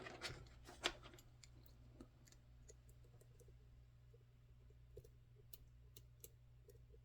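Faint clicks and light ticks of a hook pick working the pin stack of an EVVA ICS high-security lock: a cluster of clicks in the first second, then sparse single ticks.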